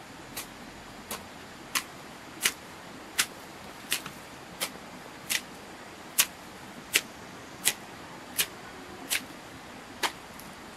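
A steady series of short, sharp clicks or strikes, about three every two seconds, over a faint background hiss.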